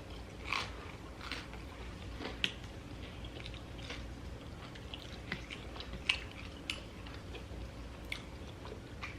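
People chewing and biting into crispy, slightly burnt pizza crust, with scattered short crunches and mouth clicks.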